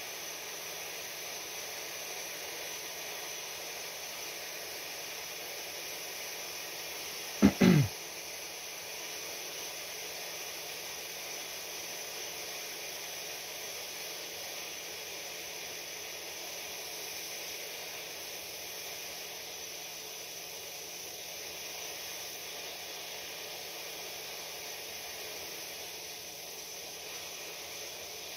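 Steady hiss of a hot air rework gun blowing. About seven and a half seconds in comes a brief loud sound that falls in pitch.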